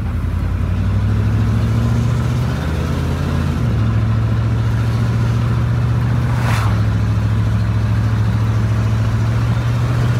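A 1990 Chevy pickup's naturally aspirated 6.2 L Detroit diesel V8, heard from inside the cab, accelerating under load. Its drone steps up in pitch about one second and about three and a half seconds in, then holds steady. It is slow to pull, with no turbo.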